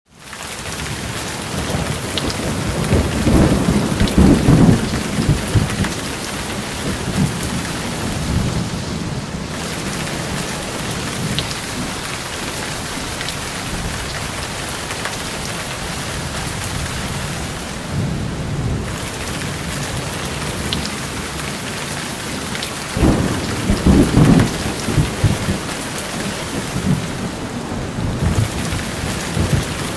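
Steady rain falling, with thunder rumbling low twice, a few seconds in and again about three-quarters of the way through.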